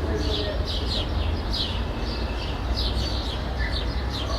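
Small birds chirping in quick, short, high notes, several a second, over a steady low rumble of distant city traffic.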